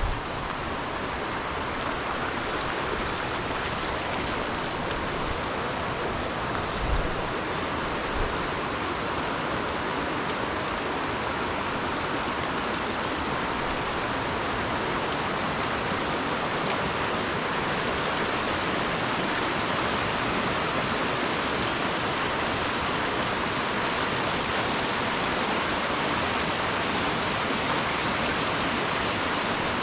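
Rushing water of a mountain stream, a steady, even hiss with no change in level.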